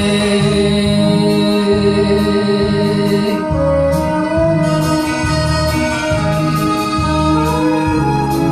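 Enka karaoke backing track, transposed six semitones below the original key, playing an instrumental passage over bass notes about once a second. A long held note for the first three seconds or so then breaks off into a moving melody.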